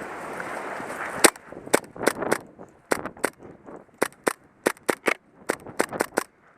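Airsoft guns firing single shots in quick, irregular succession, about twenty sharp cracks, starting a little over a second in with the loudest shot. Before the shots, a noisy hiss.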